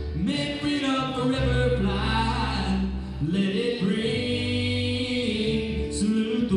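Live band playing a country song: a male voice singing over acoustic and electric guitars and electric bass.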